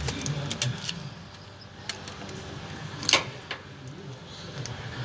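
A few sharp metallic clicks and knocks of a wrench working on the truck's drain plug or oil filter to loosen it, the loudest about three seconds in.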